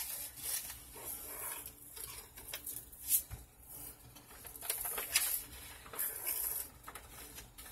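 Crushed ice and salt being spooned into an ice cream maker's chill tank: scattered light clicks and short hissing rustles.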